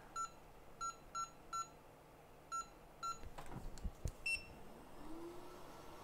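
Short electronic beeps from a bench device, six at one pitch with uneven gaps, then a single higher beep about four seconds in, with a few low knocks just before it.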